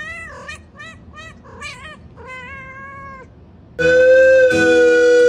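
Tabby cat meowing in a quick run of about five short meows, then one longer meow. About four seconds in, loud background music with long held notes comes in.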